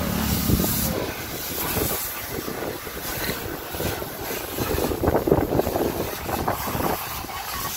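Water jet from a washer hose spraying the underside of a car, hissing and splattering unevenly as it hits metal and splashes into the wash pit.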